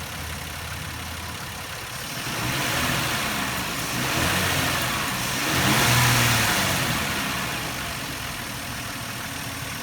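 A 2000 Nissan Maxima's V6 engine idling, then revved up in two stages, peaking a little past the middle, before settling back to idle near the end.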